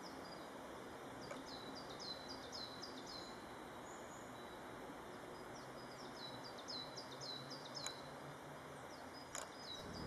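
A small songbird singing runs of high, quick, downward-slurred notes, about five a second, in three phrases of about two seconds each, over a faint steady hiss.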